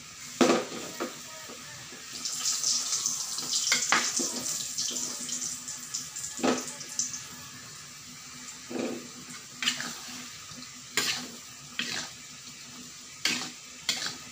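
Tofu pieces tipped into a hot wok of stir-fry sizzle for about five seconds. Then a metal spatula knocks and scrapes against the metal wok several times as the food is stirred.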